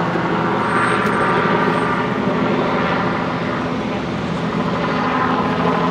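A steady engine drone with an even, unbroken hum.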